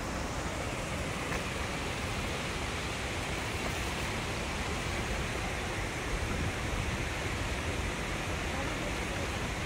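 River water rushing steadily, an even hiss of flowing current with no breaks.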